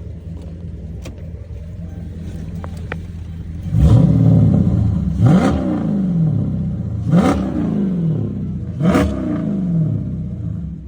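A Chrysler 300 SRT8's 6.4-litre Hemi V8 idles, then is revved four times, each rev falling back toward idle. The owner is chasing a tick on the passenger side and suspects it is an exhaust leak or rattle rather than the lifters.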